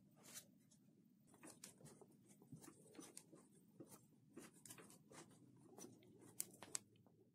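Faint, irregular small clicks and scratches, two or three a second, over quiet room tone, with two sharper clicks about six and a half seconds in.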